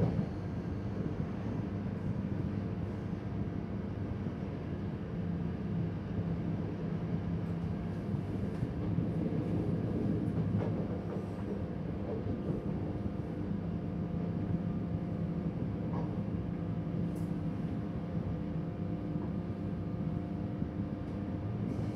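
Electric passenger train running steadily, heard from the driver's cab: even rolling noise with a steady motor hum, and a few faint clicks as the wheels cross points.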